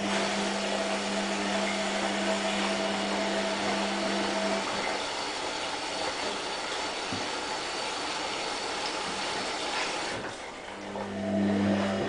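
Front-loading washing machine running through a wash, with a steady hum over the swish of the tumbling drum. The hum stops about a third of the way in and starts again near the end, after a brief lull, as the drum pauses and turns again.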